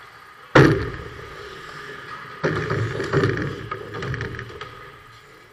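Ice hockey action at close range: one sharp, loud impact about half a second in, then a couple of seconds of skate blades scraping and scuffling on the ice as players crowd in close, fading toward the end.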